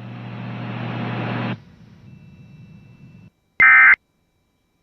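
Radio static, a hiss with a low hum, cuts off about a second and a half in and leaves a faint hiss. Near the end comes one short, loud screech of EAS SAME digital data tones, the first of the end-of-message bursts that close the tornado warning.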